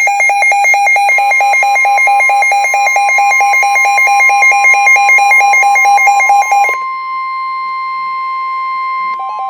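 Emergency alert on the air: a harsh electronic alarm beeping rapidly, several beeps a second, over the steady single-pitch warning alarm tone of NOAA Weather Radio. The beeping stops about seven seconds in and leaves the steady tone sounding alone, with a brief burst of beeping again near the end.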